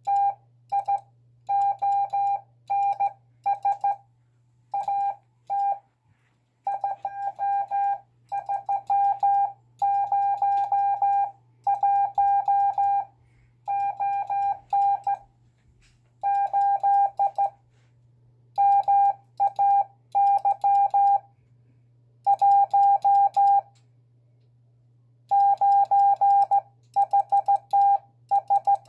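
Morse code sent with an iambic paddle key: a single steady mid-pitched beep keyed on and off in short and long elements, grouped into letters and words with longer pauses between them. The sending is a beginner's and not perfect.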